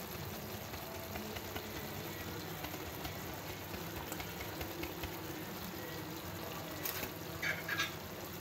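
Creamy vegetable curry simmering in a kadhai, a steady low bubbling hiss, with a few light clicks near the end.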